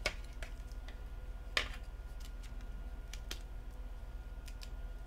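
Light clicks and taps of a Samsung Galaxy S6's parts being handled and pressed back into its frame, the sharpest about one and a half seconds in, over a steady low hum.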